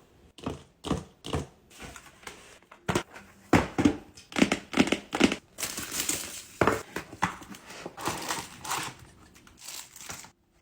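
Paper crinkling and rustling in quick, irregular bursts as a handmade paper blind bag is handled and opened.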